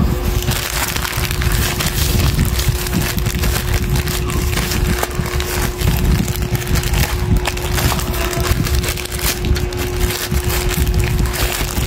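Plastic courier mailer bag crinkling and crackling as it is handled and opened, over a steady low hum.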